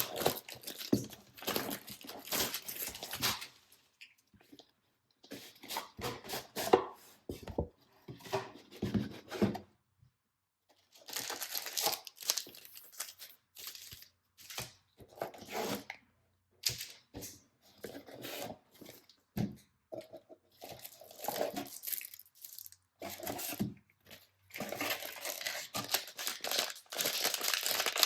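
Pokémon TCG Build and Battle Stadium packaging being torn and crinkled by hand, in irregular bursts with several short silent pauses between them.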